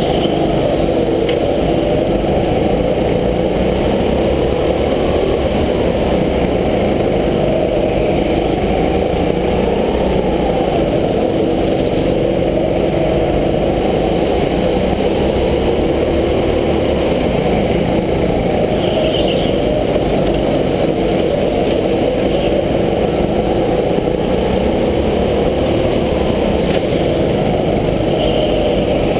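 Go-kart engine heard from aboard the kart, running hard and steady under throttle, its pitch rising and falling gently as the kart drives through the turns and down the straight. The sound is muffled, with little treble.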